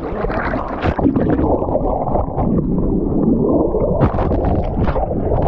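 Water churning, splashing and gurgling right at the microphone, a continuous rush broken by many sharp splashes, as from a camera held at or under the water surface among swimmers.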